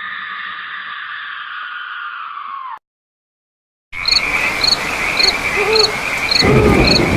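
A sustained high-pitched tone that cuts off abruptly. After a second of silence comes a night-time nature sound effect: a steady cricket trill with regular chirps about twice a second, and frogs croaking in lower sliding calls.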